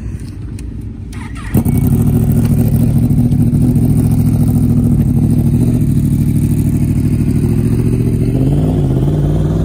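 KTM RC390's single-cylinder engine starting about a second and a half in, then idling steadily, with a brief rev that rises and falls near the end.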